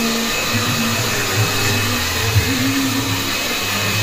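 Electric hair dryer blowing steadily, with a steady motor hum under the rush of air.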